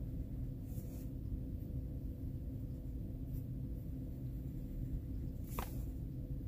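Faint, occasional scratching of a coloured pencil on paper over a steady low electrical hum.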